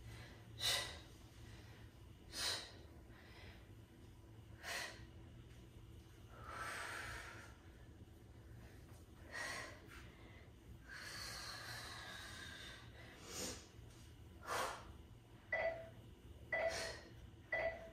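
A woman's heavy breathing during a bodyweight exercise: short, sharp exhales every second or two, a couple of longer drawn-out breaths, and a few short voiced breaths near the end.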